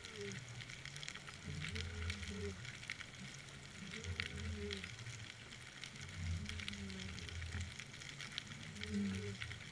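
Underwater ambience picked up by a submerged camera: a constant fine crackling, with a low pulsing sound that comes back about every two and a half seconds, four times.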